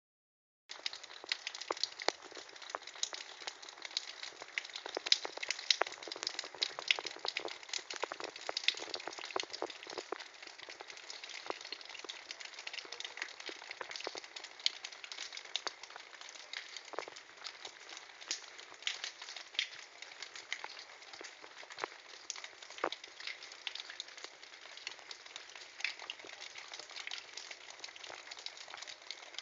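Thaw water dripping and splashing onto ice and wet pavement, a dense, irregular patter of drops.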